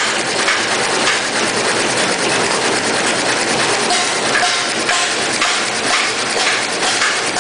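Kitchen towel production machine running, its rollers and drives making a steady, loud mechanical clatter of rapid, even clicking.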